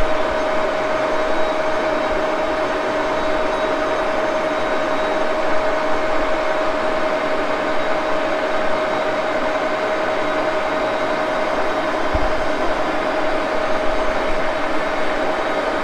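1941 Axelson engine lathe running steadily while a round nose tool takes a cut on a workpiece held between collet and live center. A steady whine sits over a constant mechanical hum.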